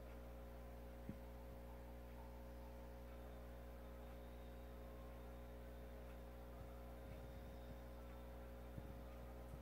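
Faint steady electrical hum with a tiny click about a second in; otherwise near silence.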